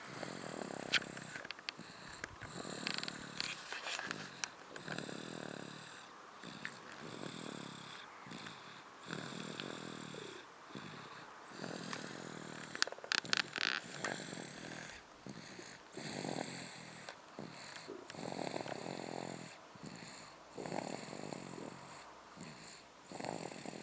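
A small child snoring in her sleep, a rasping snore on each breath, about one every two seconds. A few sharp clicks come through about a second in and again near the middle.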